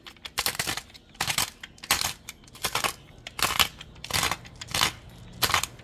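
Hand-held pepper grinder twisted in repeated strokes, about eight short grinding crunches roughly two-thirds of a second apart.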